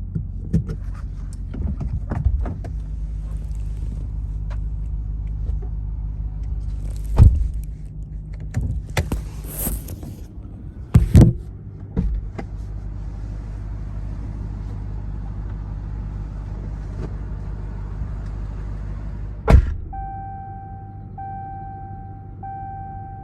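Ram TRX pickup running with a steady low rumble in the cab, broken by several sharp knocks and thumps. Near the end a vehicle warning chime starts, beeping about once a second.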